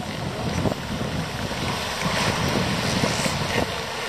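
Wind buffeting the microphone in uneven gusts over the wash of surf.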